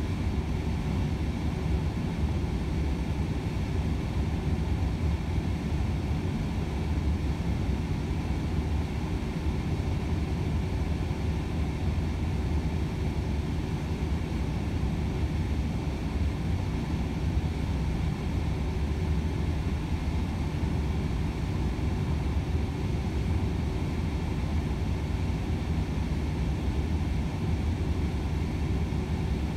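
Cab interior noise of a Volvo FH 500 truck cruising at steady motorway speed: a low, even drone of its 13-litre six-cylinder diesel blended with tyre and road noise, unchanging throughout.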